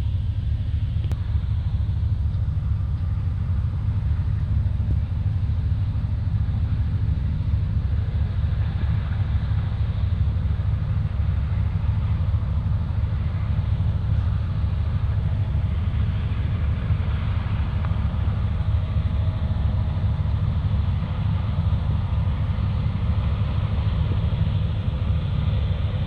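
Steady low rumble of wind buffeting the microphone, with distant combines and farm machinery running faintly underneath.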